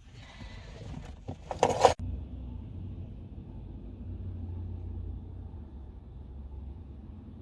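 A few knocks and a short loud clatter, then a steady low rumble.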